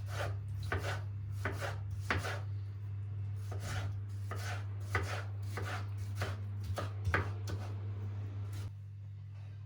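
Knife chopping on a cutting board: a run of irregular chops, one or two a second, over a steady low hum that drops near the end.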